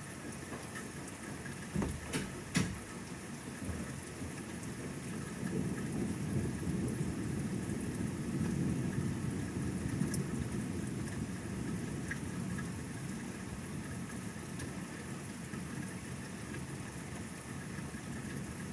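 Thunderstorm: steady rain hissing, with two sharp cracks about two seconds in, then a low rumble of thunder that swells and slowly fades.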